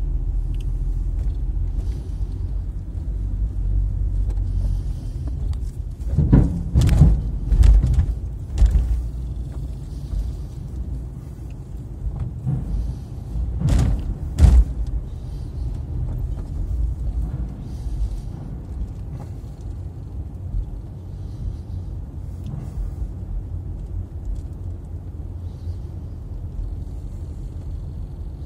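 Car cabin rumble as the car rolls slowly up a steel ferry loading ramp onto the car deck, with a cluster of heavy thumps about six to nine seconds in and two more around fourteen seconds, as the wheels cross the ramp's steel joints and plates.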